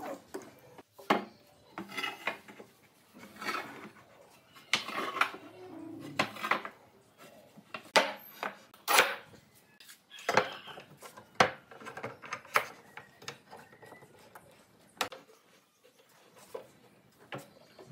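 Pine boards knocking together and onto steel pipe clamps during a glue-up, with sharp metal clinks from the clamps and some rubbing and sliding of wood between the knocks, at irregular intervals.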